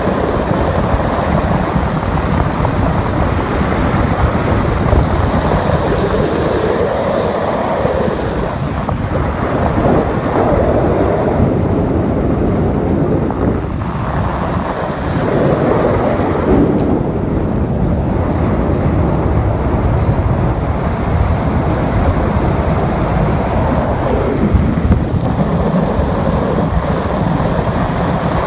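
Car driving at speed on a wet road: loud, steady wind and road noise with tyre hiss, swelling and easing every few seconds.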